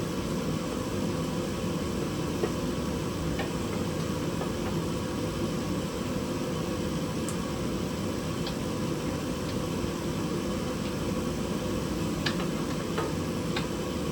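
Steady mechanical hum, like a fan running, with a few faint clicks and taps scattered through it.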